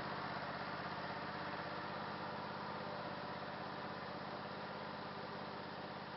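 Craftsman garden tractor engine running steadily as the tractor drives away, growing gradually fainter.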